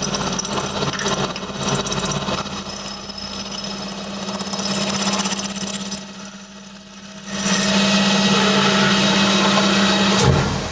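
CZK0640A CNC lathe running and machining: a steady low machine tone under dense cutting noise. The noise falls away for about a second past the middle, then comes back, and the sound changes abruptly just before the end.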